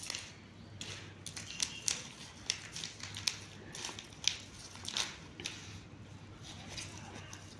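A kitten scrabbling and pawing at a cloth tape measure against a cloth pillow and a plastic basket: scattered light scratches, rustles and clicks at an irregular pace, over a steady low hum.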